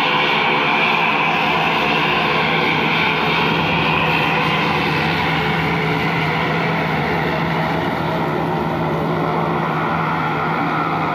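Twin turboprop engines of an Indian Air Force Dornier 228 running as the plane taxis: a steady propeller drone with an engine whine, growing slightly quieter in the last few seconds.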